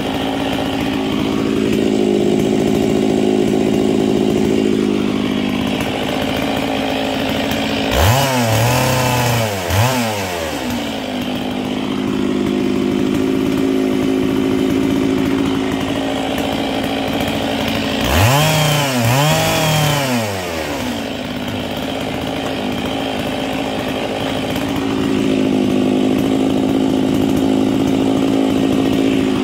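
Stihl 660 chainsaw's two-stroke engine idling steadily, with two brief bursts of revving about 8 and 18 seconds in; in each burst the pitch rises and falls twice in quick succession.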